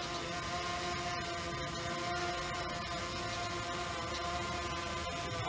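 DJI Phantom 3 Standard quadcopter flying close overhead, its four propellers giving a steady buzzing whine made of several held pitches.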